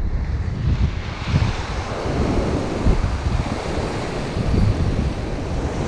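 Surf breaking and washing over shoreline rocks, with wind buffeting the microphone in irregular low rumbles.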